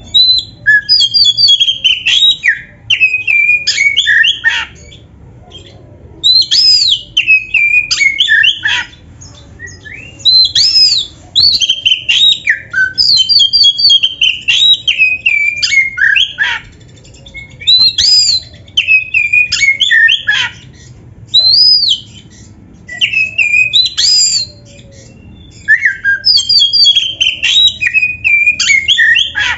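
Oriental magpie-robin (kacer) in full, loud song: phrases of about two to four seconds of gliding whistles and harsher chattering notes, repeated over and over with short pauses between them.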